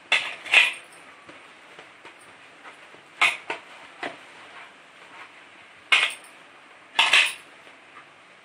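Hands kneading semolina dough in a metal pot, with sharp clinks against the pot at irregular intervals, a few in quick succession just after the start, around three to four seconds in, and near the end.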